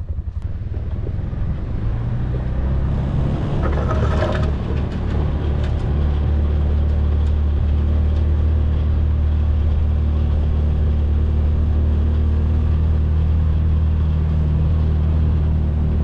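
Can-Am Defender HD7 side-by-side's engine running steadily under load while plowing snow, its note building over the first couple of seconds. A brief harsher noise about four seconds in.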